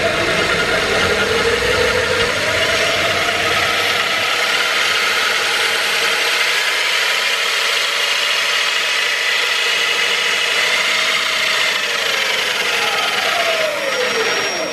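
Cordless drill running steadily, spinning a 12-volt DC motor as a generator through its drive shaft, with a whine and gear noise. The pitch shifts a little as the speed changes, falls as the drill slows near the end, and cuts off suddenly.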